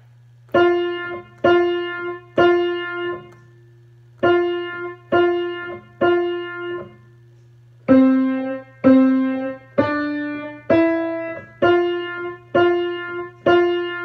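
Acoustic piano played loud, a slow single-note melody of separately struck notes, each ringing and fading: three repeated notes, a pause, the same three again, a pause, then two lower repeated notes stepping back up to the first note, which is struck three more times. A faint steady low hum sits underneath.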